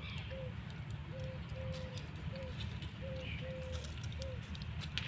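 A dove cooing: a soft three-note phrase, short, medium, then long, repeated about every two seconds over a low steady rumble.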